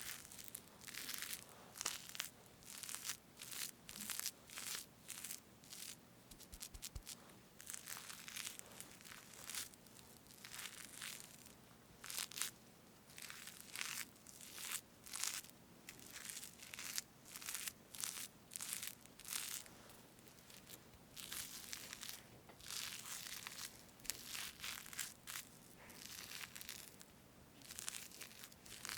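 Fresh whipped cream on a strawberry cake being parted with a utensil, close to the microphone: a long run of short, soft squishing strokes, one or two a second.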